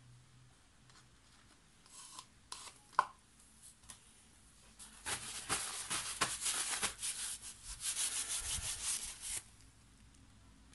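A few light clicks and knocks, then rapid rubbing strokes for about four and a half seconds starting some five seconds in, most likely hands being wiped clean of paint with a paper towel.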